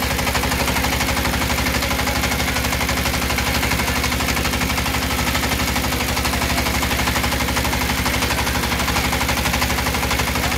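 The engine driving a belt-driven puffed-snack extruder runs steadily with a rapid, even chugging pulse, while the machine pushes out a continuous tube of puffed snack.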